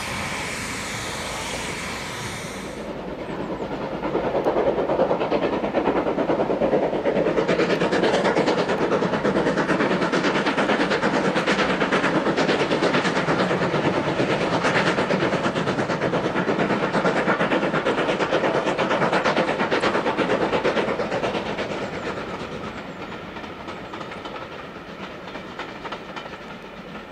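Steam locomotive, LNER K1 class No. 62005, working hard as it hauls a train past, with fast, rhythmic exhaust beats and rail noise. The sound builds up over a couple of seconds, holds loud, and fades as the train draws away near the end.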